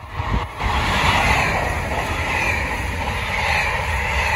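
Red Italo high-speed electric train passing at speed: a loud, steady rush of wheel and air noise that swells about half a second in and then holds.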